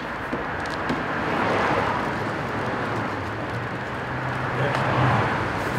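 A car engine running close by, with a steady low hum that swells near the end; the general noise of traffic rises about a second and a half in.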